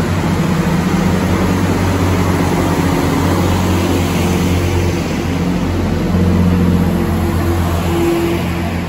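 Class 165 diesel multiple unit's underfloor diesel engines running, a steady low drone that swells about six seconds in and eases near the end.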